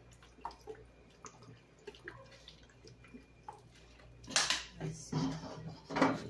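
Vinegar poured from a bottle trickles and drips into a wok of pork and vegetables. About four seconds in come a few loud bursts of scraping and rustling as the ingredients are stirred and tossed in the unheated pan.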